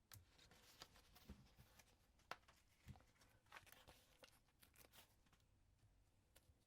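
Faint rustles and light taps of card and paper being handled on a work surface, with a sharper tap about two seconds in.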